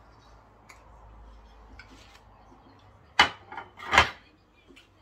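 Things being handled on a tabletop during a meal: two sharp clattering knocks about a second apart, roughly three seconds in, with a smaller knock between them.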